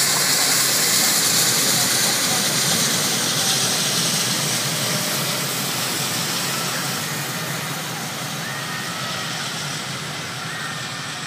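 LNER A3 steam locomotive Flying Scotsman and its train passing at speed: a loud rushing, hissing noise, loudest at first and fading steadily as the train draws away.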